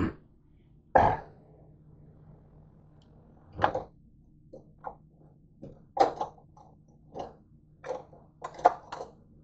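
Kitchenware being shifted around in a dish drainer: irregular knocks and clatters of plastic and metal items such as a colander, a pot lid and a cutting board, the loudest about a second in. A faint steady low hum runs underneath.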